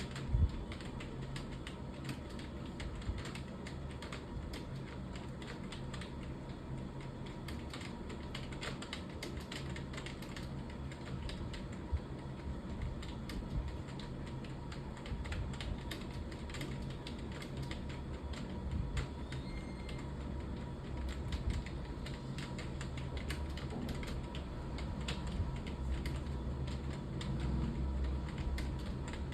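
Continuous fast typing on a computer keyboard: a dense run of irregular key clicks over a steady low hum.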